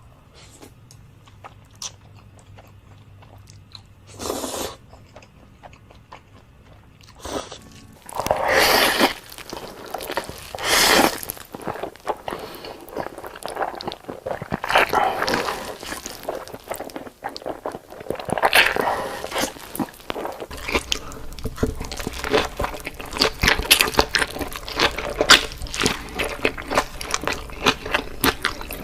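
Close-miked eating: big bites of food crunching, then chewing, in a series of separate bites. About two-thirds of the way through, a low steady hum comes in beneath a stretch of rapid, wet chewing clicks.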